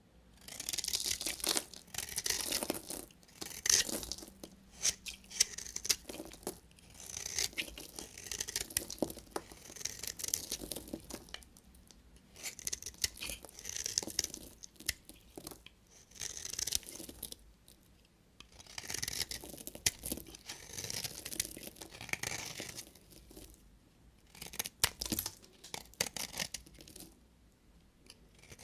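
A knife cutting through bars of soap in a series of scraping, crunching strokes, each a second or two long, with sharp clicks and short pauses between strokes.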